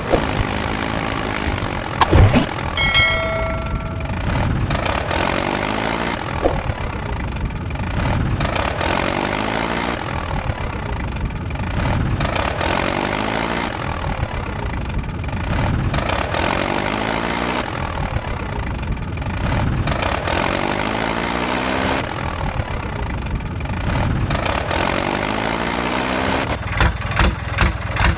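Engine running at idle, a sound that repeats itself about every four seconds like a looped recording. A bell-like ding comes about three seconds in, and a few sharp knocks come near the end.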